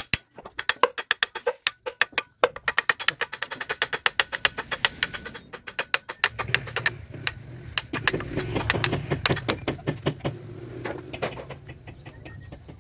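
Rapid, evenly spaced metallic clicking, typical of a ratchet wrench working bolts loose during an engine teardown. The clicks thin out after about six seconds, when a low steady hum comes in.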